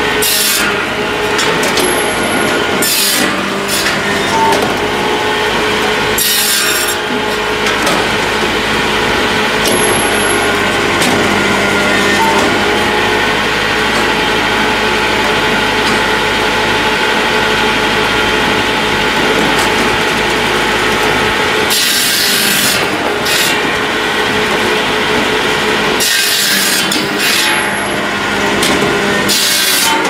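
Hakki Pilke OH60 firewood processor, run off a Massey Ferguson 1020 tractor, sawing and splitting slab wood into stovewood. The machine runs steadily, with several short, louder bursts as pieces are cut.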